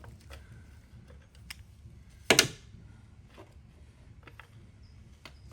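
Small metal parts and tools clicking and clinking as a motorcycle's shift linkage is taken apart by hand, with one much louder, brief metallic clatter a little over two seconds in.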